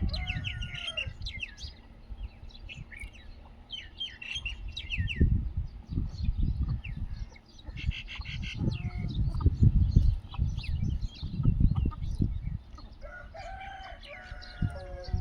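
Desi village roosters crowing, one crow trailing off at the start and another beginning about 13 seconds in, with smaller chirps and cheeps from the flock between them. A low rumble swells through the middle.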